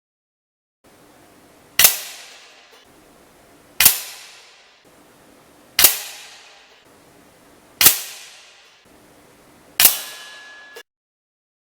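Hatsan AT44 .177 PCP air rifle firing five shots about two seconds apart, each a sharp crack with a short decaying tail.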